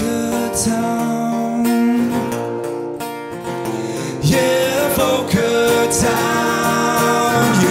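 Live band playing a country-style song: strummed acoustic guitar with bass and drums and a male voice singing. The music swells louder about four seconds in.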